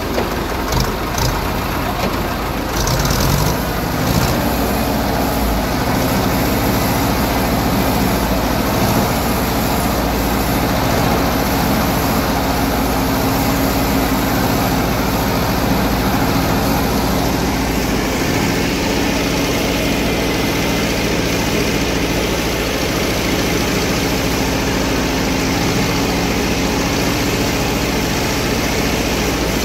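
Farm tractor's diesel engine running steadily as it drives through deep floodwater, with its tyres churning and splashing the water.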